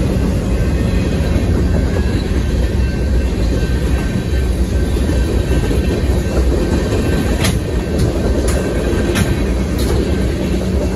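Freight train cars rolling past: a steady low rumble of steel wheels on rail with clickety-clack, and a few sharp metallic clanks in the second half.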